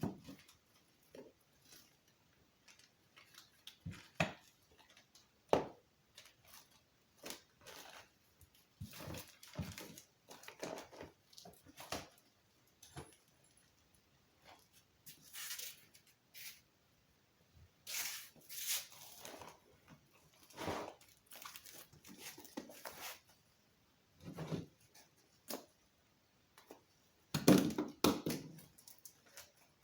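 Irregular rustles, clicks and knocks of packaging and parts being handled, with a louder cluster of knocks near the end.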